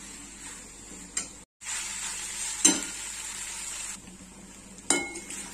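Macaroni sizzling in a metal kadai while it is stirred with a metal slotted spoon. The spoon knocks against the pan three times, and the sound breaks off for a moment about a second and a half in.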